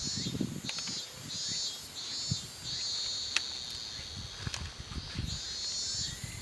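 Insects trilling in repeated high pulses, several overlapping, with a few soft low thumps underneath.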